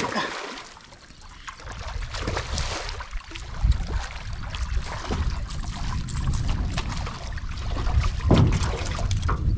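Water lapping and sloshing around a small aluminium boat, with gusting wind rumble on the microphone and scattered small clicks and knocks.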